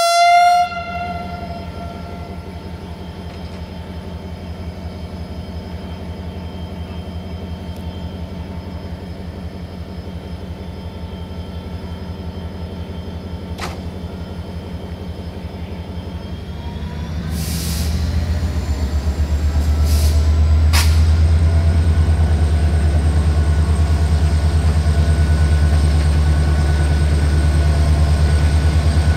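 Diesel-electric locomotive idling with a steady low throb, the tail of its horn blast dying away at the very start. About 17 seconds in the engine revs up, with a few short hisses and clicks, and settles into a louder steady run under load as the train starts to pull away.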